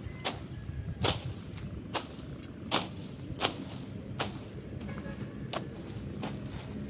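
A sickle slashing through dry rice straw and grass in a steady run of short, sharp cutting strokes, about three every two seconds.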